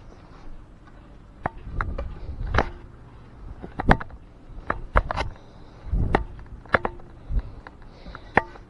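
Close handling noise: about a dozen irregular clicks and knocks, with a few duller thumps, as a toy sword is gripped and moved right at the camera.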